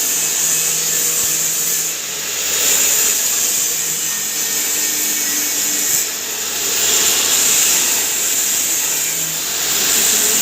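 Turmeric pulverizer (spice grinding mill) running with a loud, steady whirring rush that swells and eases every few seconds.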